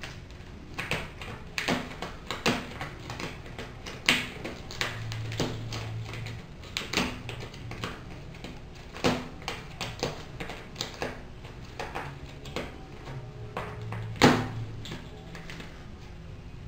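Irregular clicks and knocks, a few sharper and louder than the rest, from a kitten in a plastic cone collar moving and pawing about its cage.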